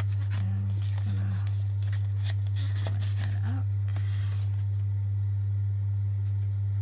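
Paper banknotes and a foam cash envelope being handled: soft rustles and light clicks, with a brief scratchy rustle about four seconds in. A steady low hum runs underneath throughout and is the loudest sound.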